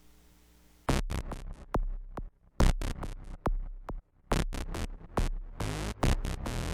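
Background electronic music starts about a second in, with choppy, stuttering beats broken by short gaps; before it only a faint hum.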